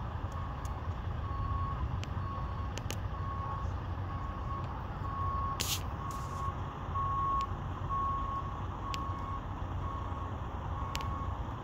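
Vehicle backup alarm beeping, a short single-pitch beep about every two-thirds of a second, over a low steady engine rumble.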